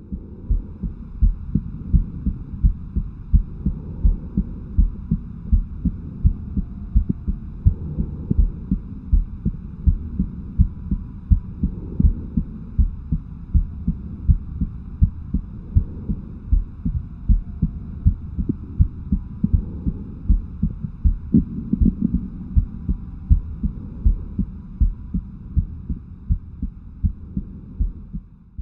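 Heartbeat sounds: a steady, even run of low thumps that goes on without a break, over a faint low hum that swells slowly about every two seconds.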